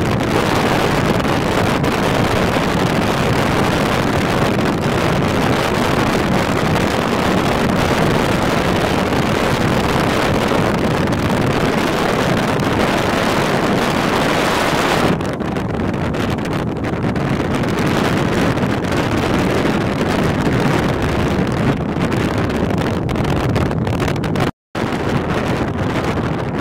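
Strong wind buffeting the microphone: a loud, steady rushing with no speech. It drops a little about halfway through and breaks off for a split second near the end.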